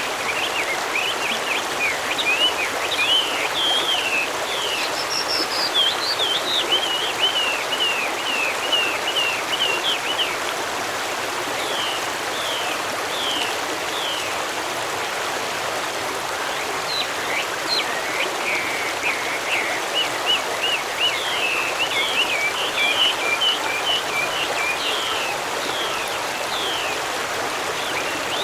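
A stream flowing steadily, with small birds singing over it in runs of quick, short chirps that pause twice for a few seconds.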